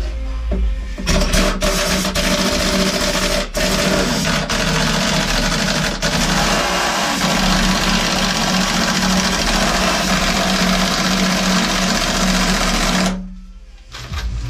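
Handheld pneumatic tool on an air hose running continuously, a steady whir with a hiss; it starts about a second in and cuts off abruptly near the end.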